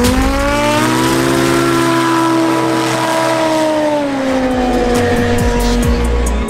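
Light aircraft engine and propeller running: the pitch rises over the first second as power comes up, holds steady for about three seconds, then falls away over the last two.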